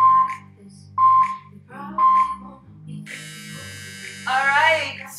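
Workout interval timer counting down: three short beeps about a second apart, then a longer, harsher buzzer tone that marks the end of a timed round. Workout music with a steady beat plays underneath.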